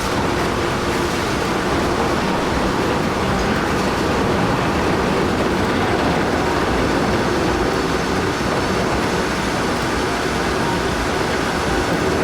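Heavy-haul truck running steadily, its engine and tyre noise forming a dense, even rumble.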